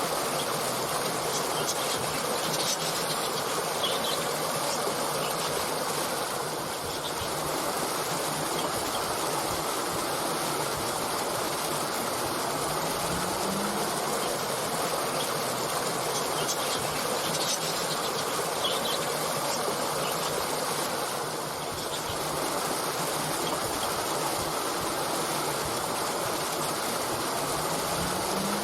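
Stream water flowing steadily, with a few short, high bird chirps now and then.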